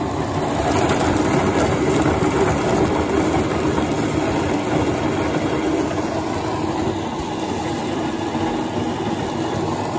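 Switched-on grain grinder running steadily, grinding corn and wheat fed into its hopper.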